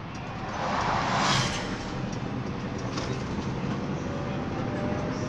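Mercedes-Benz Sprinter minibus driving, heard from inside the cabin: a steady engine and road drone, with a rushing whoosh that swells and fades about a second in as an oncoming bus passes close by.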